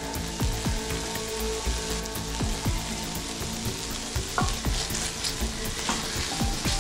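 Chopped onions sizzling in a hot pot while a wooden spoon stirs them, with frequent short scrapes and knocks of the spoon against the pot.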